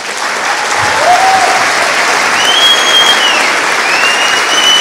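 Large audience applauding, steady dense clapping.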